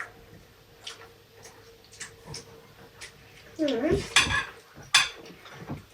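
Cutlery and dishes clinking during a meal: scattered light taps of forks on plates, with two louder clinks about four and five seconds in. A short voice-like sound comes just before the first loud clink.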